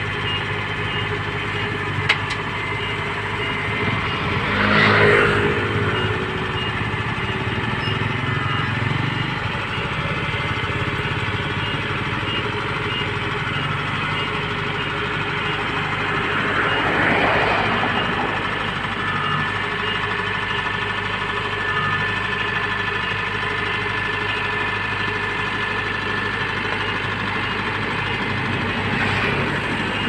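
Kubota DC-70 Pro combine harvester's diesel engine running steadily as the tracked machine crawls down aluminum ladder ramps into a rice field. The engine swells louder about five seconds in and again near seventeen seconds, and there is one sharp click about two seconds in.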